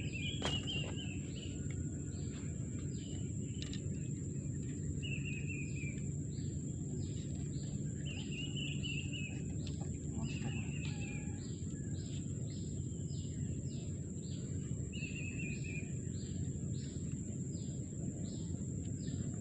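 Mangrove wildlife ambience: a bird's short falling trill of rapid notes comes five or six times, over a steady high insect whine, a regular chirping about twice a second, and a low steady background noise.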